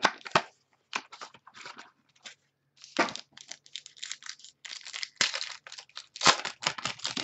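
Hands tearing open and handling a sealed box of 2012 Prime Signatures football trading cards: irregular ripping and crinkling of wrapper and cardboard, with a few sharper knocks, the loudest about three and six seconds in.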